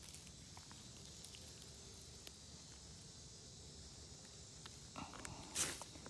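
Faint woodland ambience with a steady high insect chorus and a few small ticks. About five seconds in comes a brief rustling scrape, the loudest sound, as a gloved hand brushes against the oyster mushrooms and the bark of the log.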